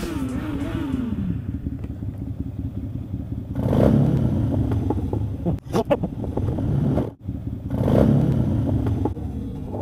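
Motorcycle engines idling, with one bike revved hard twice, about four seconds in and again about eight seconds in: rev bombs.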